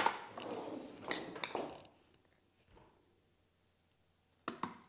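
Flour being tipped into a stand mixer's bowl: a sharp knock and clinks of the container against the bowl, with a soft rustling pour, in the first two seconds. Then quiet, with two small clicks near the end.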